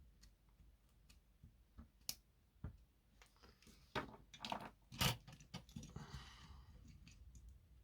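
Faint, scattered clicks and taps of hand tools and a soldering iron on a small circuit board while solder braid and flux are used to clear a solder bridge, the sharpest taps about four and five seconds in, with a soft hiss a little later.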